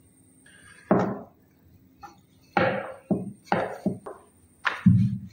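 Wooden rolling pin on a plastic board: a sharp knock about a second in, then several short strokes as it is rolled back and forth over a ball of dough.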